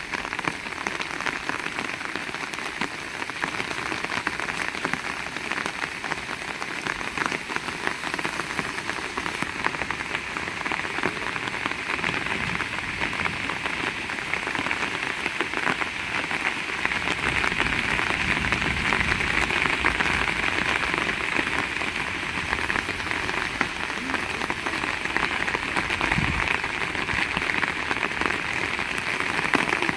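Heavy rain falling steadily, a dense patter of drops, growing a little louder about halfway through.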